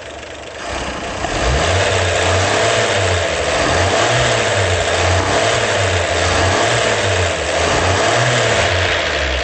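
Freshly rebuilt Chevrolet Stovebolt inline-six running on a test stand on its first start, breaking in its new camshaft. It gets louder about a second in and then runs on steadily.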